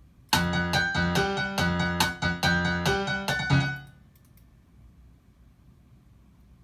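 A MIDI pattern from Maschine played back through a software instrument in Reason: a run of pitched, keyboard-like notes, about two or three a second, that stops abruptly after about three and a half seconds.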